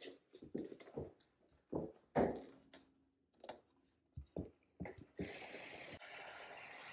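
Heavy framed mirror being handled and lifted against a drywall wall: a series of soft knocks and bumps, then a steady scraping rustle for the last couple of seconds as the frame slides down the wall onto its screws.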